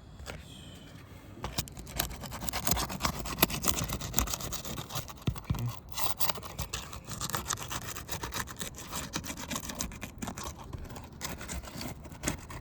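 Metal snake tool scraping and clicking under brittle roof shingles as the nails are pried out: a rapid, irregular rasping with sharp clicks that starts about a second and a half in.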